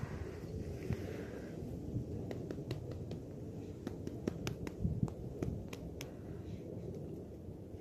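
Low rumble of wind on the microphone, with a string of faint sharp clicks from about two to six seconds in.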